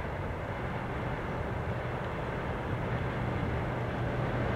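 Siemens ER20CF Eurorunner diesel locomotive hauling a freight train on its approach: a steady low engine drone that slowly grows louder as it nears.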